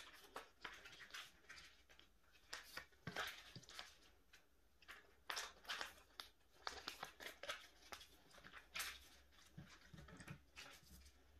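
Faint, irregular rustling and crinkling of clear plastic binder sleeves and photocards as cards are handled and slid in and out of the pockets.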